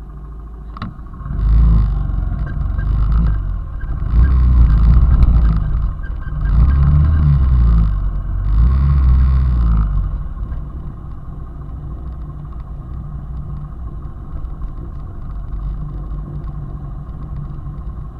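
Small 90 cc Honda motorcycle engine running on the move, in four louder surges of about two seconds each, then settling to a steady, quieter drone about ten seconds in.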